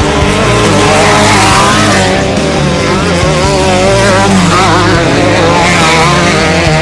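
Off-road desert race vehicles' engines revving hard, their pitch rising and falling repeatedly.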